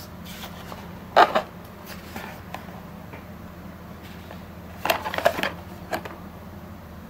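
Hands handling a small cardboard box: a short rustle about a second in, then a cluster of scrapes and taps around five seconds in as it is turned, over a steady low hum.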